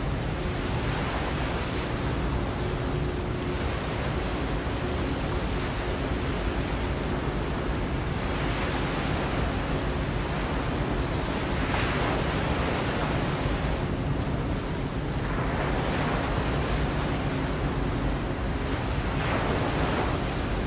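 Steady rushing noise of waves and wind that swells in soft surges every few seconds, with a faint low steady hum beneath.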